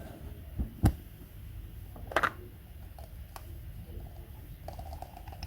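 A few separate sharp knocks and clicks of objects being handled, the loudest a little under a second in and again a little after two seconds, over a low steady hum.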